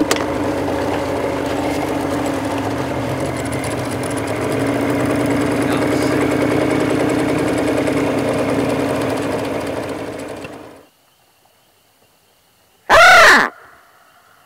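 Boat's outboard motor running steadily under way, shut off abruptly about eleven seconds in. About two seconds later, one short, loud call close by, rising and falling in pitch.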